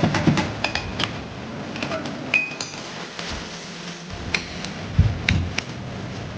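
Metal tools and parts clinking and knocking during an air suspension repair: scattered sharp clinks, a few with a short ring, and a couple of heavier thuds about five seconds in.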